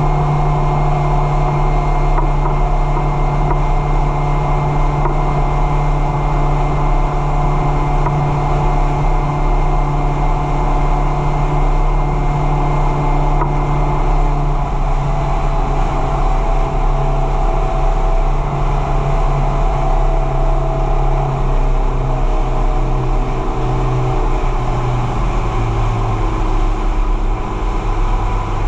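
Small boat's engine running steadily under way, slowing down over the last few seconds.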